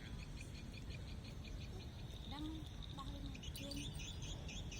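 Outdoor wildlife chirping: rapid, evenly repeated high chirps from birds or insects, growing denser about three and a half seconds in, over a steady low background rumble.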